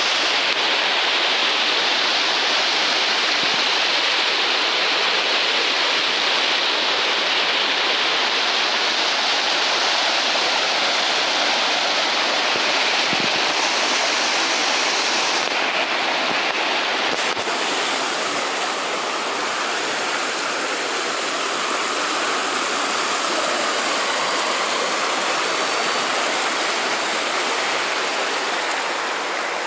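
Steady rush of a shallow stream running fast over boulders and stones; it turns a little softer and duller in the second half.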